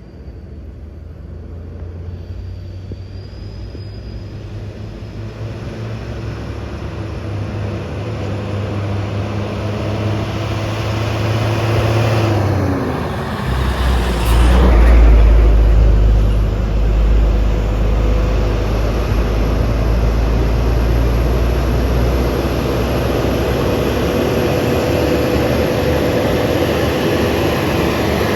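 Truck's diesel engine roaring as it climbs a steep hill, growing louder as it approaches. About twelve seconds in, the engine note drops, and a deeper, louder rumble carries on from there.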